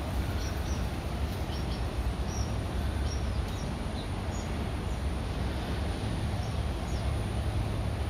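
Steady low rumble of road traffic, with about a dozen short, high chirps scattered through it.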